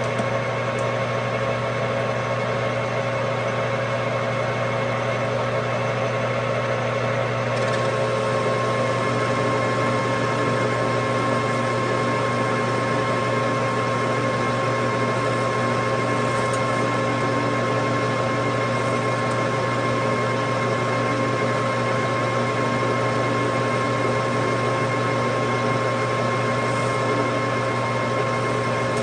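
Metal lathe running steadily while turning down the outside of metal tubing for a bushing, taking a cut of about a hundred thousandths: a constant motor hum with steady whining tones.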